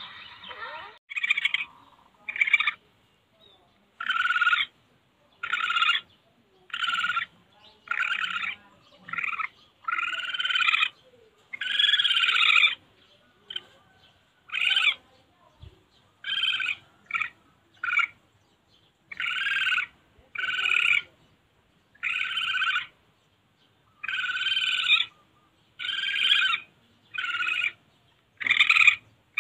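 Civet calling over and over: about twenty short calls, each well under a second to about a second long, coming roughly one a second with a few short pauses.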